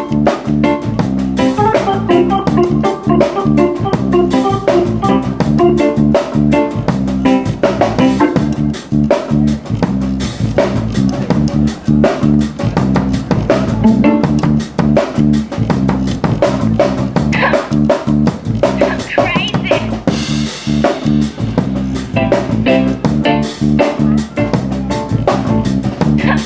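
Live reggae band playing: drum kit, bass guitar, keyboards and guitar.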